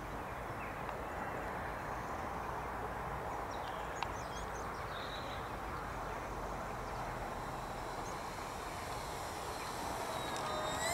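Steady background hiss with a few faint bird chirps; near the end the whine of the E-flite Turbo Timber Evolution's electric motor comes in, rising in pitch and growing louder as the RC plane flies in low.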